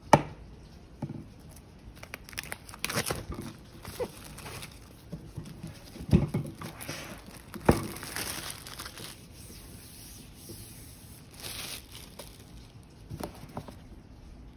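Clear plastic shrink wrap crinkling and tearing as it is pulled off a cardboard laptop box by gloved hands, in irregular rustling spells. There is a sharp tap just at the start and a couple of knocks a little past the middle.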